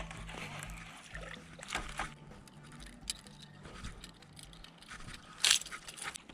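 Fishing reel being cranked to retrieve a lure just after a cast: a low steady hum from the reel with scattered faint clicks, and a short louder swish about five and a half seconds in.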